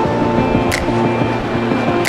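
Background music: held notes over plucked low notes, with a sharp percussive hit about every 1.3 seconds.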